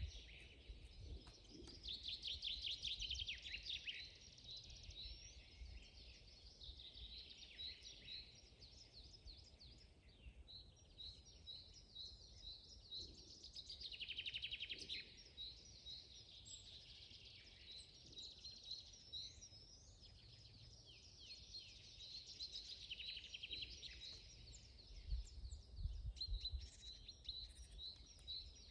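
Several songbirds singing together in a forest, a busy mix of overlapping chirps, quick repeated notes and trills, with a faint low rumble underneath.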